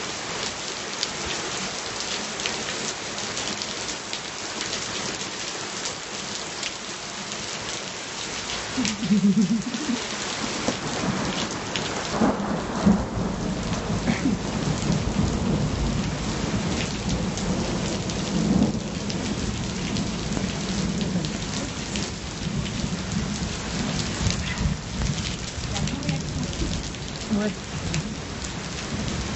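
Steady rain falling, with many sharp drop hits close by. About nine seconds in, low thunder begins to rumble, and it rolls on for most of the rest.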